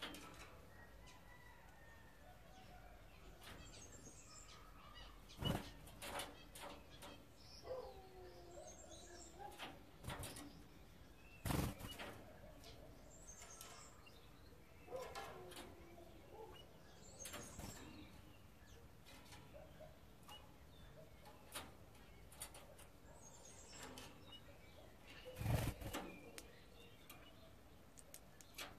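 Eurasian bullfinches fluttering and landing on a cage's wire mesh: a few short, sudden flaps and knocks over a faint background, with faint soft bird calls in between.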